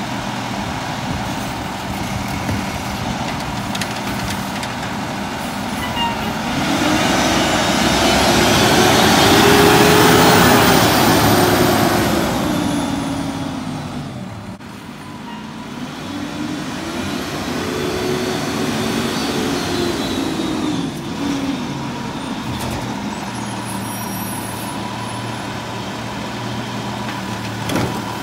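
Peterbilt garbage truck's diesel engine idling, then revving up and back down as the truck pulls away. Its pitch climbs and falls, and a second, smaller rev follows before it settles back to a steady idle.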